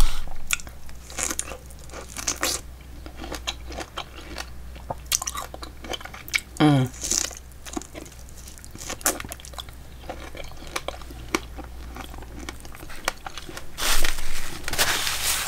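A person chewing and biting food at close range, with many small clicks and wet mouth sounds. A brief falling vocal sound comes about halfway through, and the chewing gets louder near the end.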